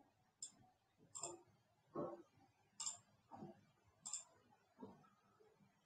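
Faint computer mouse clicks, about seven short clicks spaced under a second apart, against near silence, while chart tools are selected on screen.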